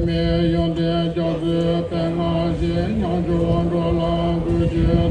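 Chanting voices holding long, steady notes on a low pitch, breaking briefly between phrases every second or so.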